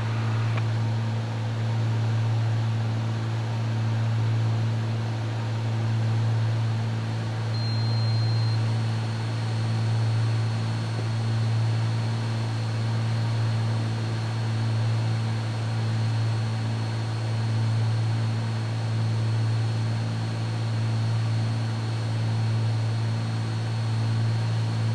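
Cessna 310's twin piston engines and propellers droning steadily in cruise descent, heard inside the cockpit. The drone swells and fades slowly about every two seconds.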